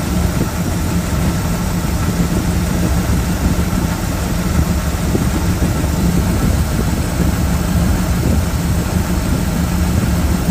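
Bullnose Ford truck engine idling steadily while its ignition timing is checked and set with a timing light.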